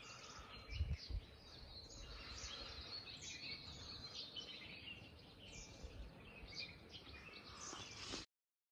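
Birds chirping and calling in many short, overlapping chirps, with two low thumps on the microphone about a second in. The sound cuts off suddenly near the end.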